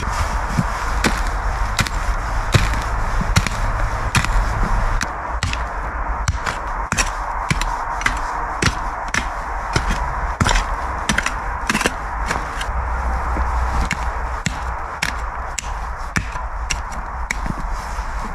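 A small folding shovel/pick chopping and scraping into soft forest-floor soil and roots, with many irregular knocks several times a second, over a steady hiss in the background.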